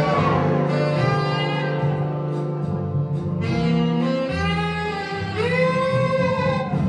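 Music for the burlesque act: a melody line that slides up and down over a steady low bass.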